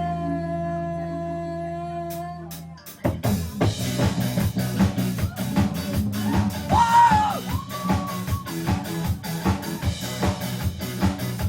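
Rock band playing: a held chord rings for about three seconds, then the drum kit and the rest of the band come in with a steady beat, and a short sung phrase sounds over it about halfway through.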